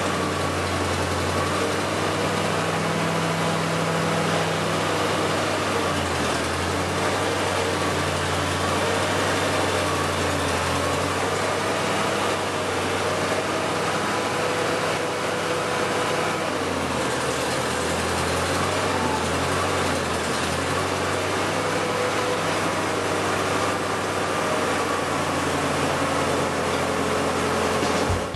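1950s Massey Ferguson tractor's engine running steadily as the tractor is maneuvered, its low note shifting a few times along the way.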